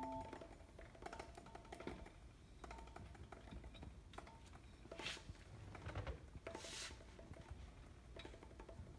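Quiet, sparse percussive music: a held chord stops just after the start, then scattered light knocks and clicks with brief faint tones, and two short hissing sounds about five and seven seconds in.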